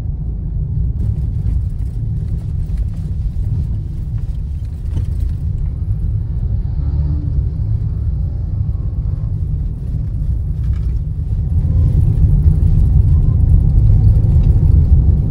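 Steady low rumble of a car in motion, heard from inside the cabin, growing louder about three quarters of the way through.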